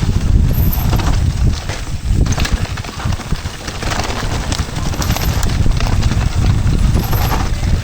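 Rumble of wind on the microphone of a moving bicycle, with irregular crackling and clattering from the tyres rolling over storm debris.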